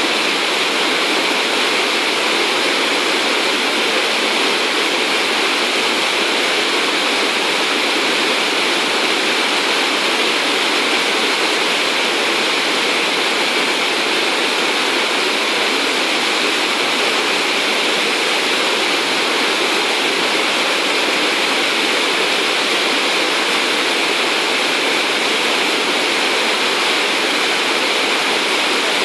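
River in flood pouring over a weir and churning into white water below it: a loud, steady rush that never lets up.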